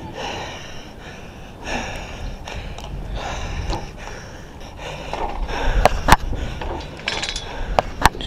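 A man breathing hard and gasping close to the microphone as he strains at rigging work up a mast. In the second half come several sharp clicks and knocks of metal hardware being handled, the loudest about six seconds in.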